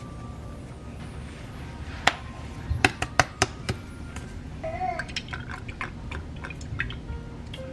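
Sharp clicks and taps of spice jars being shaken over a stainless steel mixing bowl of cut sweet potatoes, several in quick succession about two to three and a half seconds in and a few more later, over a low steady hum.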